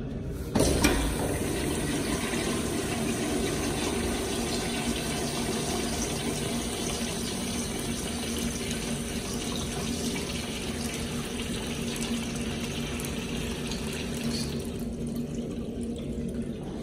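Urinal's chrome flushometer valve flushing: a sudden loud rush of water starts about half a second in, then runs steadily with a low hum. The rush thins out near the end as the valve shuts off.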